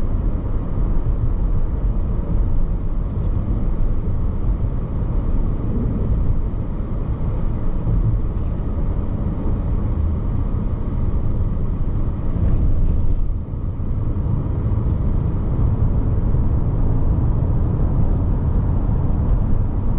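Road and engine noise of a moving car heard from inside the cabin: a steady low rumble, dipping briefly about two-thirds of the way through.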